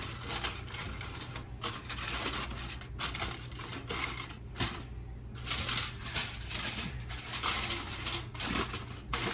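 Quick, irregular clicking and crackling from handling in the kitchen, with short pauses, over a steady low hum.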